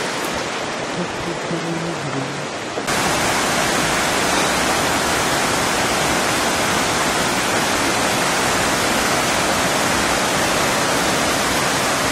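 Creek water rushing over rocks, with faint voices. About three seconds in it cuts to a louder, fuller, steady rush: a spring pouring out of a rock cave as a small waterfall and tumbling into white-water rapids.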